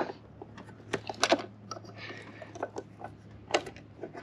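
Scattered light clicks and taps of a Torx socket on an extension, turned by hand to thread bolts into a plastic roof-rack cross bar foot, over a low steady hum.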